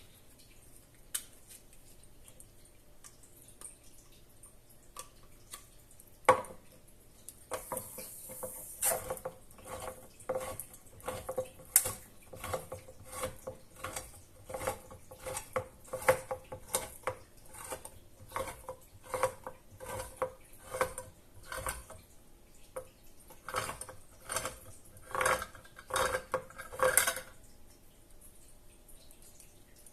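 Metal cutlery clinking and scraping against a bowl in quick, irregular strikes, with the bowl ringing faintly on many of them. A single sharper knock comes about six seconds in, and the clinking starts about two seconds later and runs until near the end.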